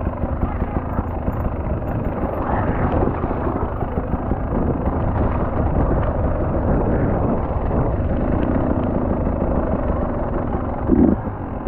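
Motocross motorcycle engine running at race pace, a dense steady noise with a heavy low rumble throughout.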